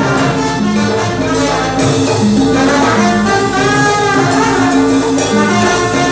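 Live Latin band playing, with a brass section of trumpets carrying held melody lines over bass and percussion.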